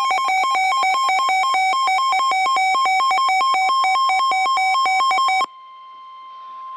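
Electronic weather-alert alarm: a loud two-pitch warble rapidly alternating between a lower and a higher tone, several times a second. About five and a half seconds in it cuts off, leaving a faint steady tone that signals the start of the next warning broadcast.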